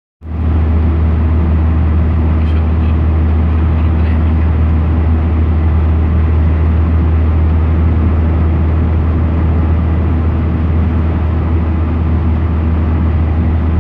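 Steady road and engine noise heard from inside a moving car's cabin: a loud, even low rumble that does not change.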